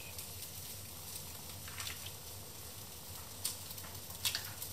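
Green asparagus pieces sizzling in butter in a frying pan: a steady hiss, with a few short taps near the middle and towards the end.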